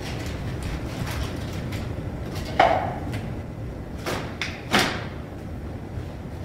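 Kitchen clatter: a sharp knock with a short ring about two and a half seconds in, then two more knocks about four and five seconds in, like cupboard doors or dishes being set down.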